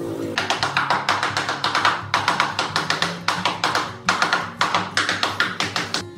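Quick runs of sharp tapping strikes, about four or five a second, over steady background music; the tapping stops just before the end.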